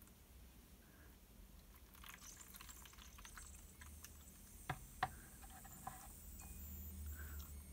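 Teaware being handled on a wooden tea tray: two light, sharp clicks about a third of a second apart, midway through, and a fainter one after, over faint room hiss.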